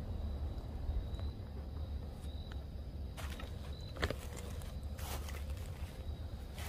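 A few quiet crunching footsteps on dry leaf litter from about three seconds in, over a low steady rumble.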